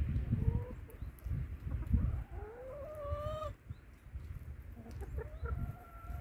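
Brown laying hens calling: a short call near the start, a long drawn-out call that rises and then holds about two and a half seconds in, and another long call from about five seconds in. A low rumble comes and goes underneath.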